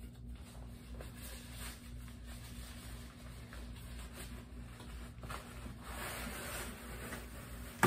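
Fabric costume pants rustling and sliding as they are worked over foam leg tubes, the rustling growing busier near the end, over a steady low hum. A single sharp knock lands right at the end.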